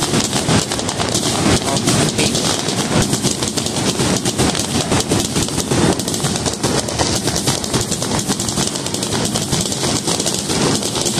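Aerial fireworks going off in rapid succession: a dense, unbroken stream of bangs and crackles.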